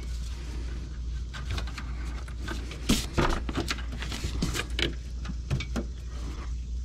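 Hands working at the plastic windshield-washer reservoir and pump fittings: an irregular run of small clicks and knocks, the loudest about three seconds in, over a steady low hum.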